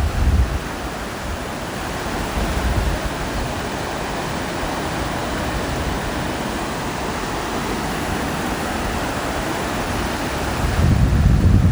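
Takakkaw Falls, a very tall waterfall, with a steady, even rush of falling water. Low buffeting from wind on the microphone comes in at the very start and again near the end.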